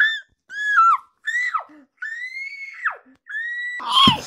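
A high-pitched squealing voice: a string of short squeals, several sliding down in pitch, with a knock of handling about four seconds in.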